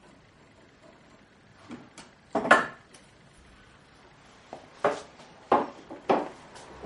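A few short knocks and clatters of tools and wood being handled on a wooden chest top: the loudest about two and a half seconds in, then three more close together around five to six seconds.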